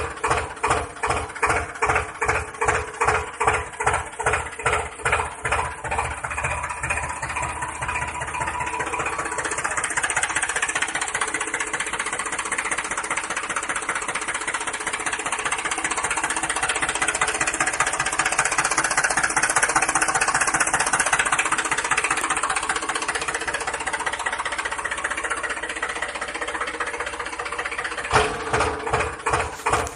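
Motor of a homemade DIY tractor running under load while ploughing. It pulses about twice a second at first, settles into a steadier running sound after about ten seconds, and pulses again near the end before cutting off.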